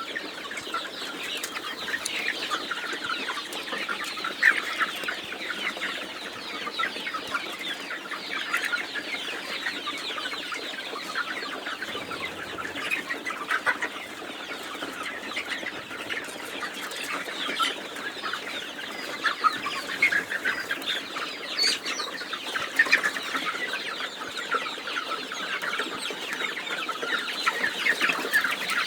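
A flock of Vanaraja chickens in a poultry house calling continuously: a dense, unbroken chatter of many short overlapping clucks and cheeps.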